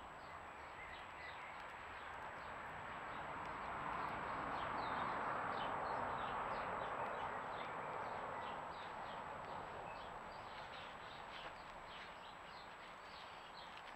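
Many short, high chirps of small birds repeating throughout, over a rushing noise that swells for several seconds and then fades.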